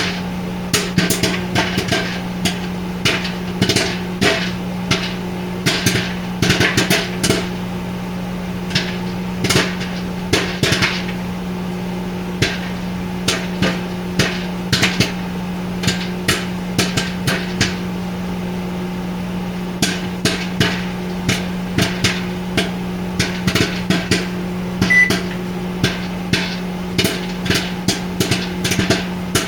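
Popcorn kernels popping in quick, irregular sharp pops inside a running microwave oven, over the oven's steady low hum.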